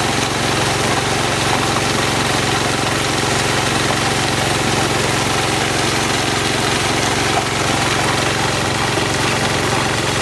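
The circular jig's 3-inch water pump and 4-kilowatt generator running steadily, under a constant rush of water gushing from the discharge pipe and splashing onto wet concrete.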